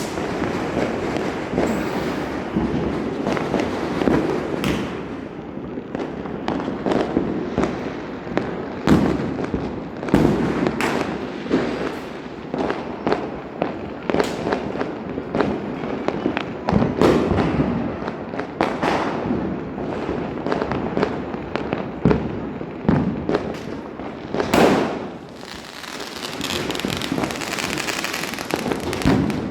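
Firecrackers going off in a rapid, irregular string of sharp bangs over continuous crackling, with a hiss near the end.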